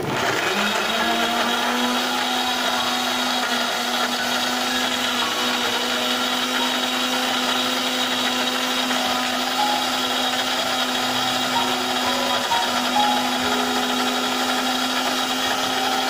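Small electric blender's motor running steadily at full speed, its blades grinding shallots, garlic and chillies into a paste.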